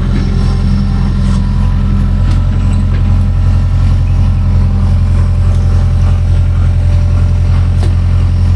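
Kobelco crawler excavator's diesel engine running steadily, with a couple of faint sharp clicks over it.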